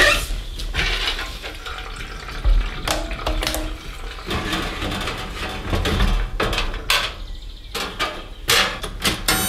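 Liquid fuel being poured while a canister and the heater's fuel tank are handled, with repeated sharp clunks and knocks of the containers and cap.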